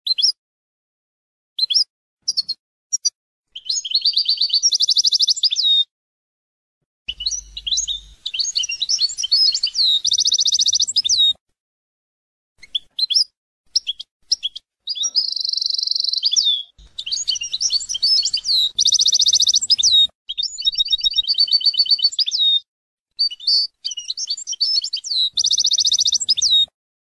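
European goldfinch singing: fast, high twittering phrases with rapid trilled runs, in several bursts separated by brief silences.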